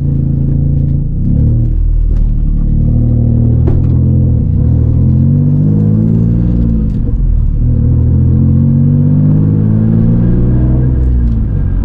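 Nissan 350Z's V6 engine running hard and revving, its pitch rising and falling several times.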